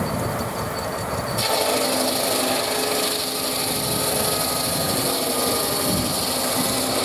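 Circular saw blade on a steam traction engine's belt-driven saw bench, spinning free with a thin high whine, then biting into a log about a second and a half in. It cuts steadily through the wood with a loud, high rasp.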